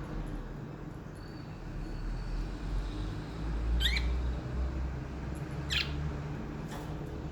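Pet budgerigars giving a few short, sharp chirps, two clear ones just past the middle and a fainter one near the end, over a steady low rumble.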